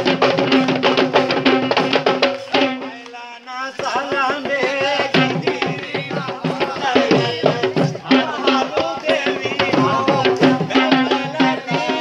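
Dance music with fast, dense hand drumming over a steady held low tone, and a wavering melody line above it. The music drops away briefly about three seconds in, then resumes.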